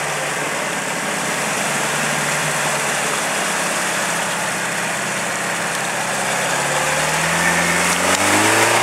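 Pickup truck's engine running at low, steady revs as the truck crawls through deep mud, the revs climbing near the end.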